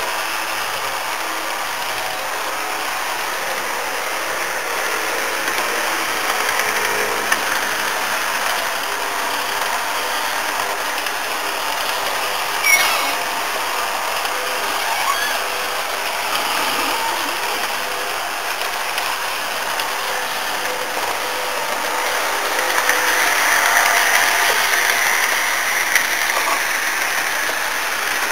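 HO-scale model passenger train running on its track: a steady whir of the electric motor and wheels on the rails. There is a single sharp click about halfway through, and the sound grows louder for a few seconds near the end.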